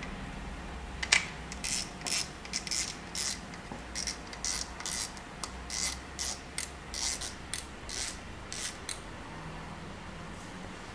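Spinning reel ratcheting as its spool is fitted and the front drag knob is turned down: a run of short, sharp clicks, one or two a second, that stops about a second before the end.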